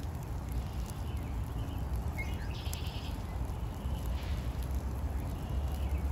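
Outdoor park ambience with a steady low rumble. About two and a half seconds in comes a short wavering animal call of about half a second, with a brief chirp just before it and a faint one about four seconds in.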